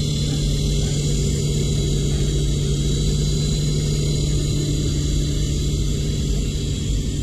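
Esky Big Lama co-axial RC helicopter's electric motors and twin stacked rotors running steadily in low flight: an even rotor hum with a high motor whine above it.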